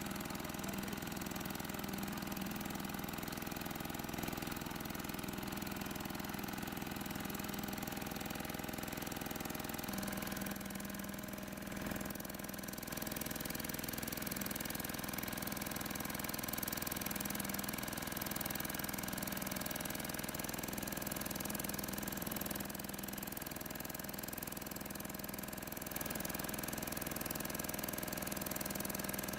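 An engine running steadily at idle, with small dips and shifts in its level now and then.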